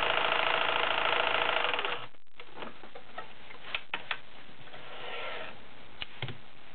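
Kenmore model 1980 sewing machine running fast, stitching a triple stretch-stitch pattern from a cam, and stopping about two seconds in. A few light clicks follow.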